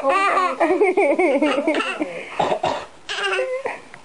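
A baby laughing hard in long, wavering peals, with an adult's short coughs in between.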